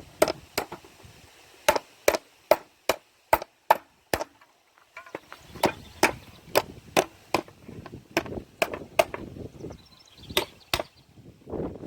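Rapid series of sharp knocks on wood, evenly paced at about two to three a second, in several runs with short pauses between them.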